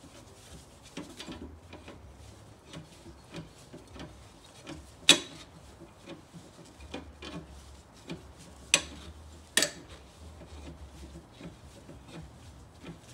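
Hand tools and wheel hardware being handled at a car wheel: small scrapes and clicks throughout, with three sharp clacks about five seconds in and twice more near nine and nine and a half seconds.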